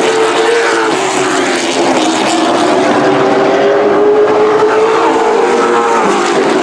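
Several super truck racing engines running at speed around a short oval, their overlapping notes slowly falling and rising in pitch as the trucks lap.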